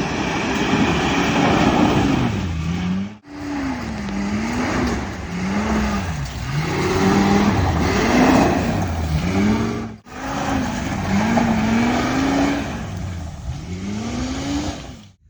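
A 1999 Ford truck's 6.8-litre V10 engine revving up and down again and again under load, in three cut-together clips that each stop abruptly.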